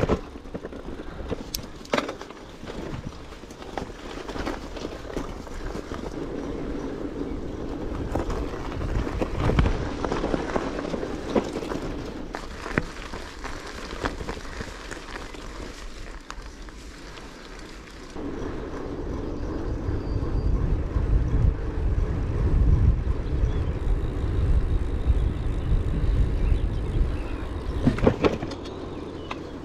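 Bicycle on the move: steady tyre and road noise with rattles and occasional knocks. A low rumble grows much louder about two-thirds of the way through.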